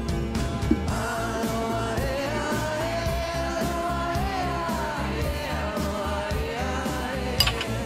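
Background pop song: a sung melody over a steady beat.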